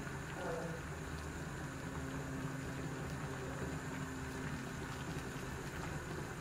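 Water at a rolling boil in a pot, bubbling and frothing steadily, with a steady low hum underneath.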